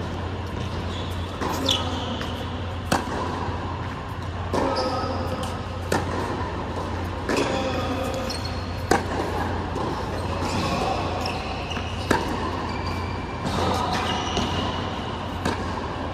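Tennis ball struck back and forth in a rally on an indoor hard court: sharp racquet-on-ball hits about every second and a half, mixed with ball bounces and short high shoe squeaks, over a steady low hum in the hall.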